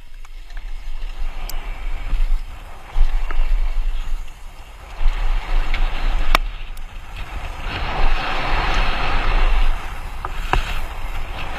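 Wind rumbling and buffeting on the microphone under a rushing hiss that swells about eight seconds in, with a couple of sharp clicks, the sound of mountain bikes moving fast over dirt jumps.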